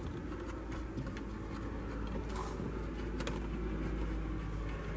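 A few faint clicks and light knocks as the top mounting bolt of a tow mirror is set into the truck door by hand, over a steady low hum.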